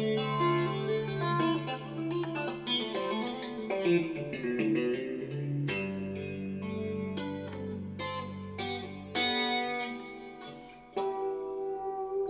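Fender Stratocaster electric guitar played with a clean tone, in a piece that mixes two-hand tapping and arpeggios. Long held bass notes sound under quick repeating higher notes, and the bass note changes about six seconds in.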